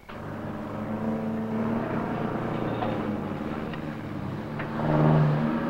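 Motor vehicle engines running on the road, a steady hum, with a deeper engine note swelling louder about five seconds in.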